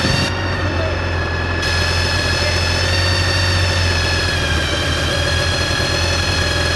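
Honda VFR400 NC30's V4 engine running at a steady speed, its pitch holding level with no revving.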